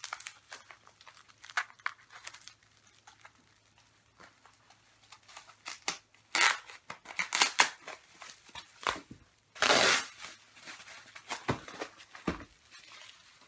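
Wrapping paper and packaging crinkled, rustled and torn by hand in irregular bursts, loudest a little before the middle and again about two-thirds of the way in.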